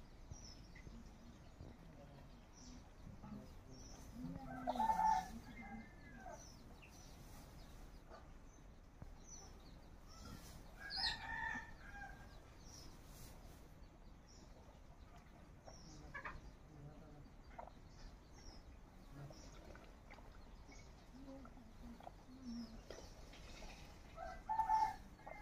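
Chickens clucking and calling, with three louder calls about 5, 11 and 25 seconds in.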